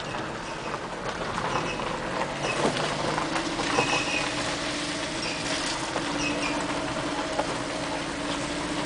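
Car driving slowly over a rough, muddy dirt lane, heard from inside the cabin: tyre and road noise with scattered knocks from bumps, and a steady engine drone that comes in about three seconds in.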